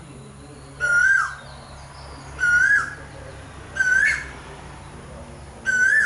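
Asian koel calling: a loud, clear upslurred whistled note of about half a second, repeated four times at intervals of roughly one and a half seconds.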